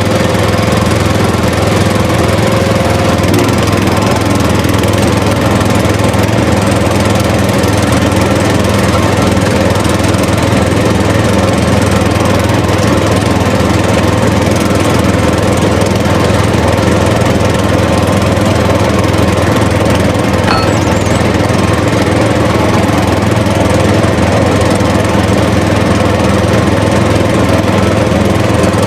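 A motor or small engine running steadily at one speed, a loud even drone with no change in pitch.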